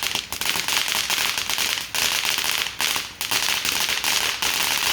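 Consumer firework going off with dense, continuous crackling and rapid pops, dipping briefly a few times.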